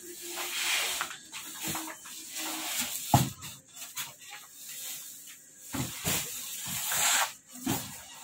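Heavy 50 kg sacks being handled and laid into a pickup truck bed: rustling of the sack fabric with several dull thumps, the loudest about three seconds in.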